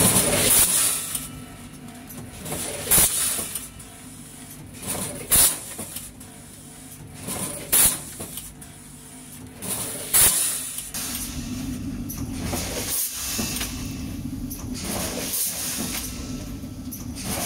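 Rotary premade-pouch fill-and-seal packing machine running: short sharp bursts of air hiss about every two and a half seconds over a steady mechanical hum, which runs on more evenly in the second half.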